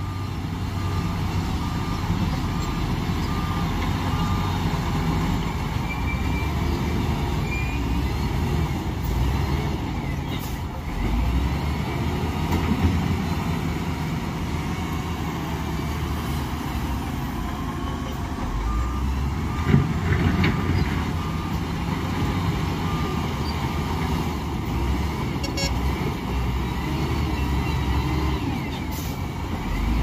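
Diesel engines of a Matador wheel loader and a bulldozer running steadily as they push rock and gravel. A reversing alarm beeps in two spells, near the start and again about two-thirds through. A single clank comes about two-thirds of the way in.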